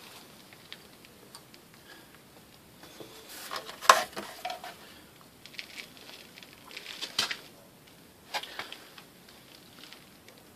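Scattered clicks, knocks and rubbing of hand work as glue is put on the shower drain and its pipe. The loudest knock comes about four seconds in, with more around seven and eight seconds.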